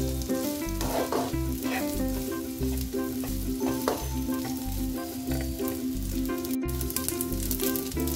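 Fried rice sizzling in a hot nonstick wok while a plastic slotted spatula scrapes and tosses it, over background music with a steady low beat.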